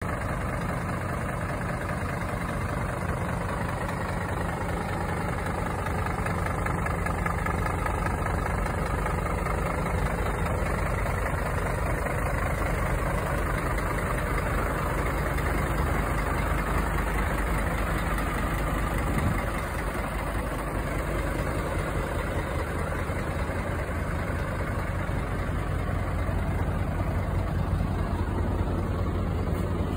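Scania P270 tanker truck's diesel engine idling steadily.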